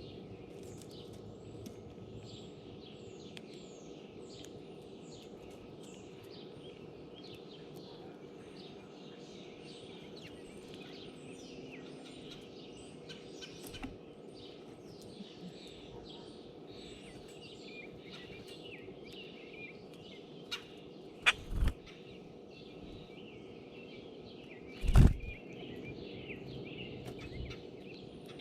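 Small birds chirping busily, with many short calls overlapping. A few loud knocks sound close to the microphone: two in quick succession a little after halfway, and a louder one about three-quarters of the way through.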